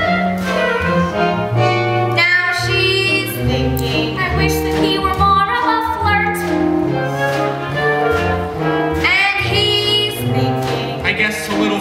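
Live musical theatre number: a pit orchestra playing with a singing voice over it, recorded from the audience.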